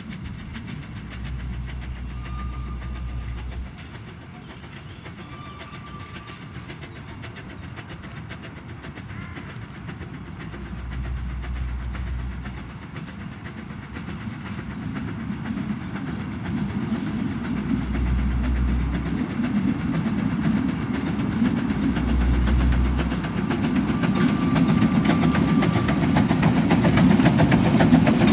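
Narrow-gauge steam locomotive, the Quarry Hunslet saddle tank Lilla, working a train of coaches on its approach. Its exhaust beats and wheel noise grow steadily louder as it nears.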